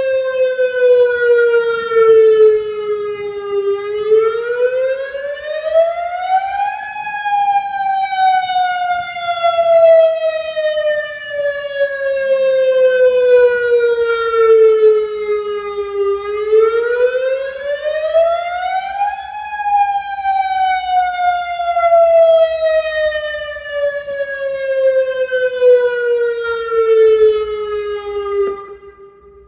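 Federal Signal DSA electronic outdoor warning siren sounding a slow wail for its monthly test. The tone climbs for about three seconds and sinks for about nine, twice over, then cuts off shortly before the end.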